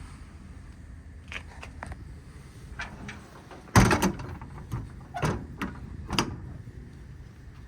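Metal compartment door on an IMT Dominator service-truck body being handled and shut: a few light latch clicks, then one loud slam about four seconds in, followed by several more knocks and clicks.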